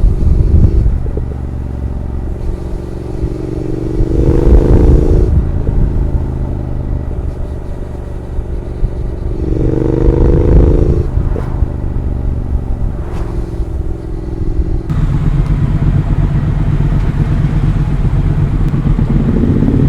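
Triumph parallel-twin motorcycle engine under way. It pulls harder twice, about 4 and 10 seconds in, rising in pitch and cutting off abruptly each time, with a few sharp cracks after the second pull. From about 15 seconds in it settles to a lower, steadier note.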